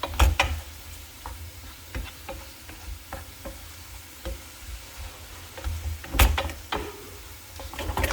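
Utensil scraping and knocking in a pan of cooked chicken filling, scooping it out to fill taco breads, with a few louder knocks just after the start and about six seconds in.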